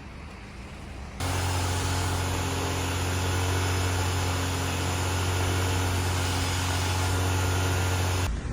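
BMW E36 316i's four-cylinder engine running at a steady speed: an even, deep hum that starts abruptly about a second in and cuts off just before the end.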